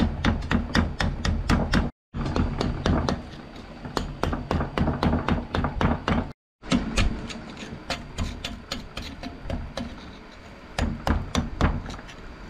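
Steel hammer striking a punch against a rusty knife clamped in a steel bench vise: a fast, even run of metal-on-metal blows, about three to four a second. The blows break off twice for an instant.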